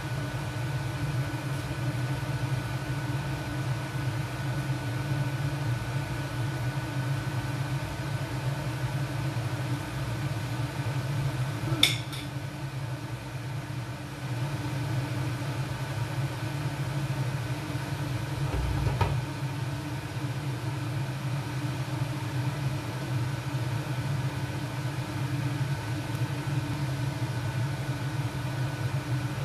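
Steady kitchen hum from a fan-like appliance, with a faint high tone, while a pan of stew cooks. A sharp clink about twelve seconds in, and about seven seconds later a dull knock as a glass lid is set onto the frying pan.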